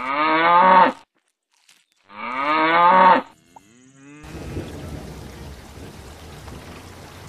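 Two cow moos, each about a second long with a falling pitch. From about four seconds in, a steady rumbling hiss takes over.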